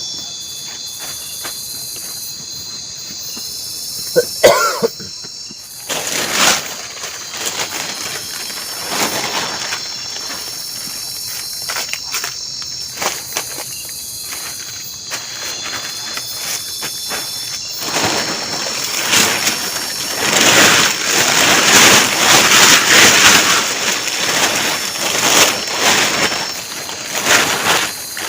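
Insects calling in steady high-pitched tones. A short sharp sound comes about four seconds in, and in the second half a louder, uneven rushing noise rises and falls over the insects.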